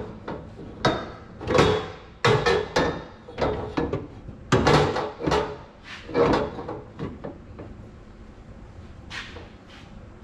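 Bent metal roll-cage tube knocking and clunking against the car's cage as it is worked up into position, about ten irregular knocks with a short metallic ring, then a pause and two more knocks near the end.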